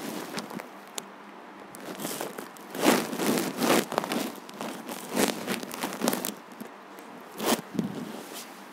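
Organza saree fabric rustling and crinkling as it is gathered and spread out by hand, in a series of irregular bursts, loudest about three seconds in and again about seven and a half seconds in.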